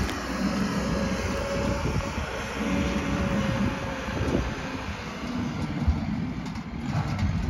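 Claas Scorpion 741 Varipower telehandler's diesel engine running steadily with a continuous drone as the machine drives across a muddy manure yard.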